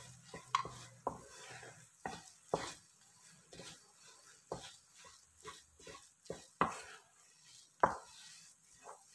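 Wooden spatula stirring and scraping thick, crumbly bread halwa around a non-stick pan: an irregular run of short scrapes and knocks, one or two a second.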